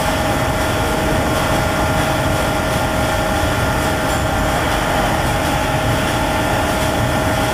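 Steady drone of workshop machinery: a constant hum with a held whine and a hiss behind it, unchanging throughout.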